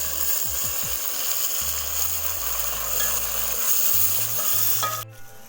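Hot cooking oil sizzling loudly in a pan as tomatoes go in on top of golden-brown fried onions. The sizzle cuts off suddenly near the end.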